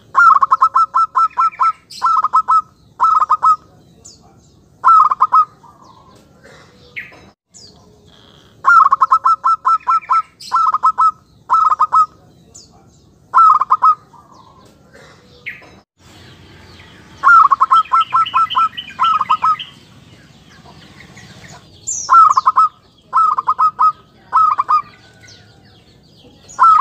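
Zebra dove (perkutut) giving its rapid staccato coo: a long run of quick repeated notes followed by several short bursts of a few notes each, a pattern repeated about three times with pauses of a second or more between bursts. This is the clear, crisp pikat call used as a decoy to lure wild zebra doves.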